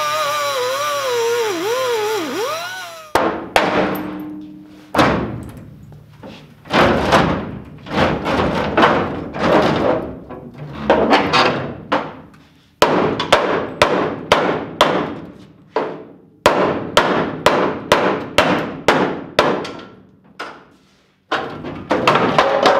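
Air-powered cutoff wheel whining as it cuts rusted sheet steel, its pitch wavering under load, stopping about three seconds in. Then a hammer pounds the rusted steel rear sill of a 1971 Chevy pickup bed again and again, about two ringing blows a second, with a few short pauses.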